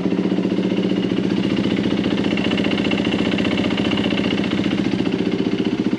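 2007 Yamaha WR450F's single-cylinder four-stroke engine idling steadily, an even rapid pulse of firing strokes.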